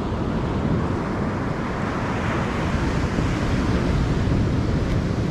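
Wind rumbling and buffeting on an action camera's microphone over the steady wash of surf, with a slight swell about two seconds in.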